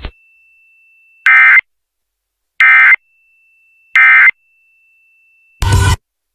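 Emergency Alert System End of Message code: three short bursts of warbling digital data tones, evenly spaced about a second and a half apart, marking the end of the test alert on FM radio. A faint steady high tone sits between the bursts, and a brief snatch of the station's programme audio comes in near the end.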